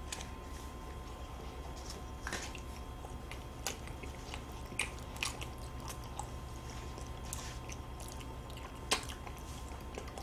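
Close-up eating sounds of Cookie-O ice cream sandwiches, soft chocolate cookies around vanilla ice cream, being bitten and chewed: quiet chewing with scattered sharp mouth clicks every second or so, over a steady low hum.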